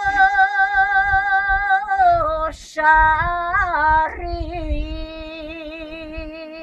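One woman singing a Bulgarian village folk song unaccompanied, holding long notes with a wavering ornament. She breaks for a quick breath about two and a half seconds in, then sings lower held notes that fade near the end.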